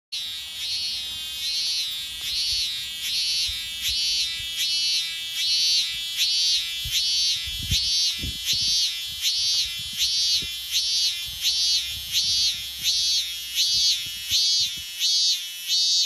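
A single cicada singing close by: a steady run of pulsing notes, about two a second, each swelling up and falling away in pitch. A few low thuds sound about halfway through.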